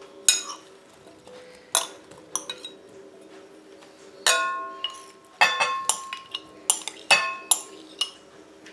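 Metal spoon clinking and scraping against glass bowls as chopped fruit is scooped out into a ceramic bowl. There are about a dozen sharp clinks, each ringing briefly, coming close together in the second half, over a faint steady hum.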